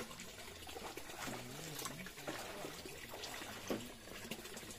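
Faint background of distant voices over a low, steady trickle of water.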